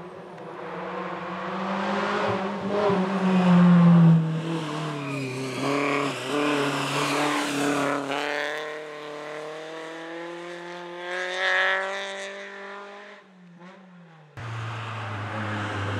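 Rally car engine approaching and passing at speed, revs rising and falling through gear changes, loudest about four seconds in, then fading away. After an abrupt cut near the end, another rally car's engine is heard approaching.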